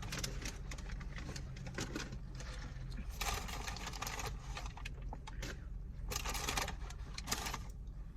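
Eating and handling takeout food: irregular clicks, crinkles and rustles of packaging and chewing, with two longer bursts of rustling around the middle and near the end, over a steady low hum.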